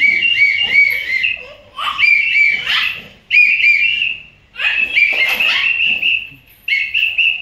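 Pet bird chirping in quick runs of short, repeated up-and-down notes, about five runs with brief pauses between them.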